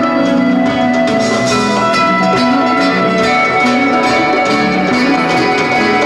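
Live rock band playing an instrumental passage: long held notes over guitar and drums.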